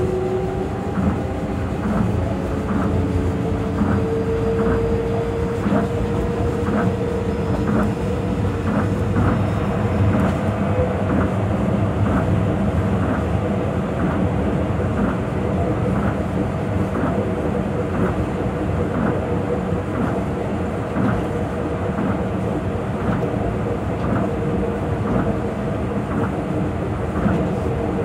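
Tokyo Monorail 2000 series running at speed, heard from inside the car: a steady rumble and motor whine, with regular knocks about one and a half times a second as its rubber tyres cross the joints of the track beam.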